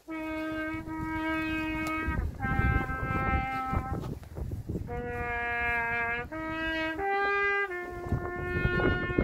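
A solo trumpet plays a slow melody in long held notes, one note at a time, each lasting about a second.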